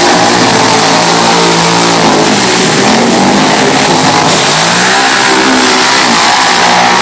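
Quad bike (ATV) engine revving hard as it churns through a deep mud pit, its pitch rising and falling again and again, over a constant loud hiss.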